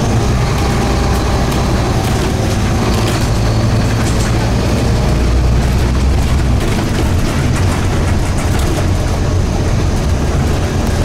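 Scania N230UD double-decker bus's diesel engine running while the bus is under way, swelling to its loudest about halfway through and easing off a little past the middle, with clicks and rattles throughout.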